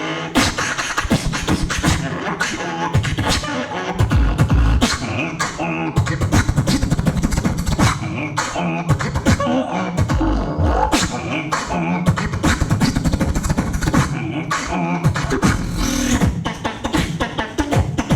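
A beatboxer performing a solo battle round into a microphone: a fast, continuous rhythm of vocal drum sounds, sharp clicks and snares over deep bass hits every few seconds, with some pitched vocal lines mixed in.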